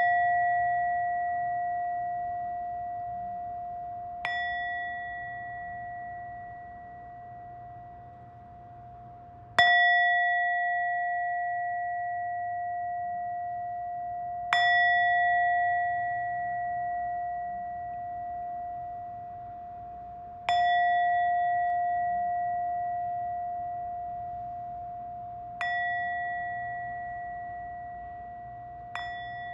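A bell with one clear, pure ringing tone, struck about every five seconds, six times in all. Each stroke rings on and fades slowly until the next. The third stroke, about ten seconds in, is the loudest.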